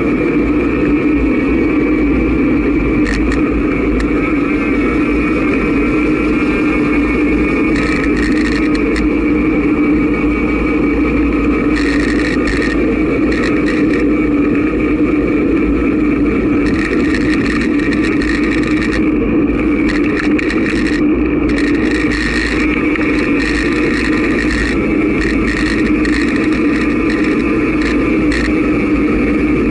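Steady, loud rush of wind buffeting the microphone of a bicycle-mounted camera on a fast downhill run.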